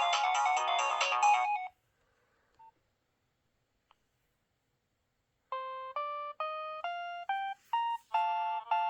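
Nokia 6030 ringtones: a busy many-note tune ends about two seconds in, then after a few seconds of near silence the next ringtone starts, a melody of separate clear notes stepping upward in pitch and then repeating a short figure near the end.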